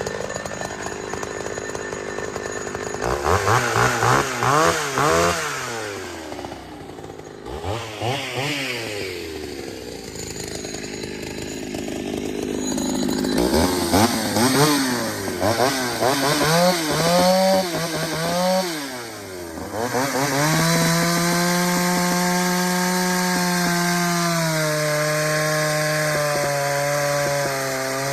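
Ported Pioneer two-stroke chainsaw, freshly fitted with a swapped carburetor, revved up and down in repeated throttle blips, then held at a steady high pitch for the last several seconds, with a slight drop in pitch about 24 seconds in.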